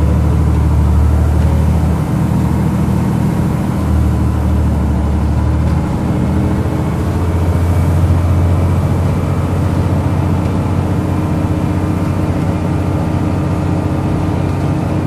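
Volvo B10B single-deck bus's diesel engine heard from inside the saloon while driving. The engine note steps down and back up a few times in the first six seconds, then pulls steadily.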